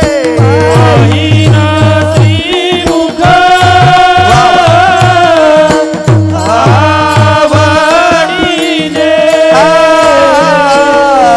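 Devotional kirtan music: singing with vibrato over a sustained instrumental drone, with rapid low drum strokes that stop about two seconds in and come back briefly around six seconds.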